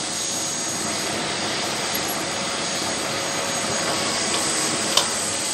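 Steady rushing noise with one sharp click about five seconds in.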